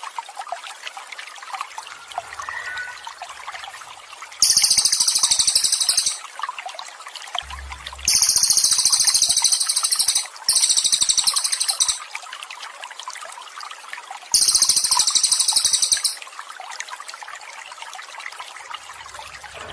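Steady trickling water with high, rapidly pulsed trills from a bird-song training recording. The trills come four times, each lasting about one and a half to two seconds, and they are the loudest sound.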